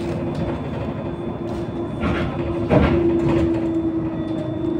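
Electric bus cabin noise while riding: a steady electric drive whine over road rumble, with a loud thump about three seconds in.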